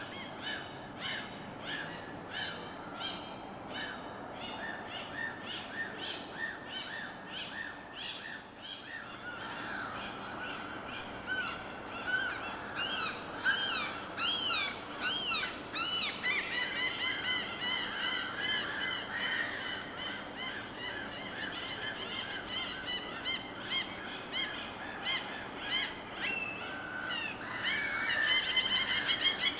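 Many birds calling over and over in quick repeated notes, with bursts of louder, arching calls in the middle and again near the end, over a steady wash of water.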